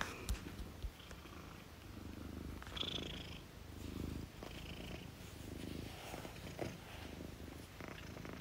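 A cat purring steadily, swelling and easing about once a second, with a few soft knocks near the start.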